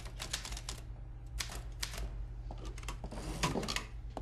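Manual typewriter keys clacking in a fast run, thinning out after about a second to a few scattered strokes.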